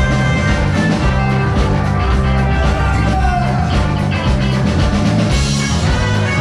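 A live rock band playing loud and steady, with electric guitars, bass guitar, drum kit and keyboard, and a singer's voice.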